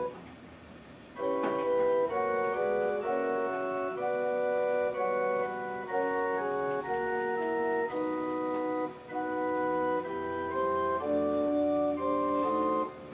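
Yamaha Piaggero NP-31 electronic keyboard playing a built-in demo tune in an organ voice: held chords with a melody above, the notes sustained without fading. It starts about a second in and stops near the end.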